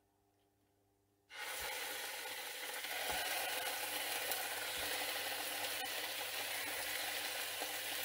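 Chicken drumsticks sizzling in hot olive oil in a frying pan. The sizzle starts abruptly about a second in, with a few soft thuds as more pieces are laid in.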